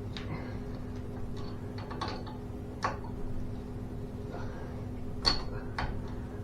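Irregular sharp metallic clicks and taps of hand tools working on garage door spring hardware, about eight in all, the loudest a little after five seconds in, over a steady low hum.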